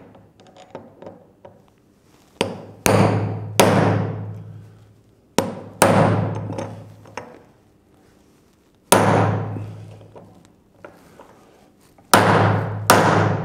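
Hammer striking a Clinsert installation tool, driving the insert's Clins (locking keys) into the metal around a threaded hole. About eight sharp metallic blows come in small groups, each ringing briefly and fading.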